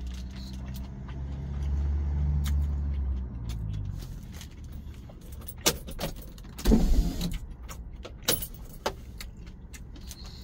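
Motor vehicle engine rumble that swells for a couple of seconds and then fades. A short, louder whoosh comes about seven seconds in, and a few sharp clicks are scattered through the rest.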